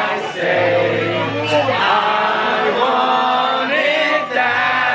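Karaoke singing: men singing loudly into a microphone over a music backing track, with several voices singing together.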